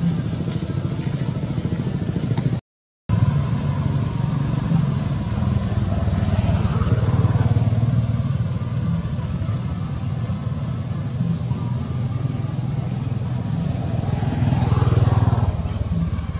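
Steady low motor rumble, like a vehicle engine running nearby, swelling twice, with short high chirps over it throughout. The sound cuts out completely for a moment about three seconds in.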